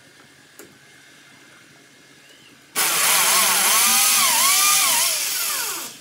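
Electric drill boring into a concrete wall. After nearly three seconds of quiet it starts suddenly and runs for about three seconds, its motor whine dipping and rising in pitch under load, then falls in pitch and dies away as it spins down near the end.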